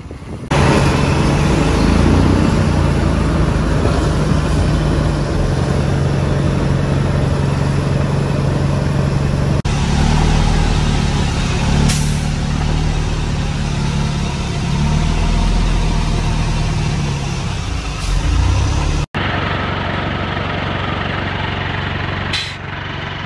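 Truck and forage-harvester diesel engines running steadily under load, heard from inside a silage truck's cab behind a Claas Jaguar harvester chopping corn. The sound changes abruptly a few times, and drops out for an instant once, near the end.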